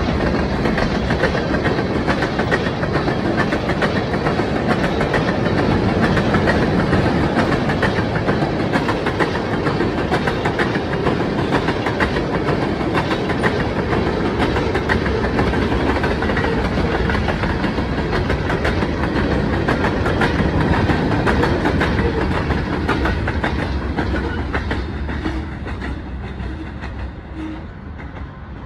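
Freight train rolling past close by, a diesel locomotive followed by tank cars and covered hoppers, with the wheels clicking steadily over the rail joints. The sound fades over the last few seconds as the train moves away.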